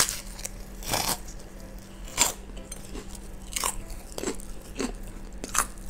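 Close-up crunchy eating of kerupuk crackers: one loud bite at the start, then separate crunches as she chews, roughly one every half-second to second.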